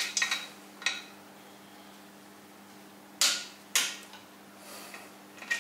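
Metal clinks and knocks of a hand tool working the clutch pressure plate bolts on a Volvo B20 engine. A few sharp strikes with a brief ring come near the start, two louder ones about three seconds in, and one more near the end.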